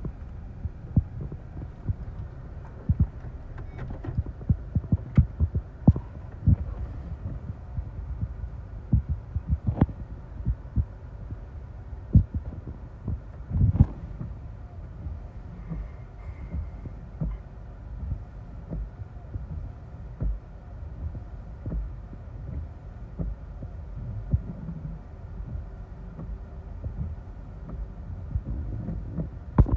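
Inside a car cabin: raindrops tapping irregularly on the roof and windshield over a low rumble of gusty wind buffeting the car.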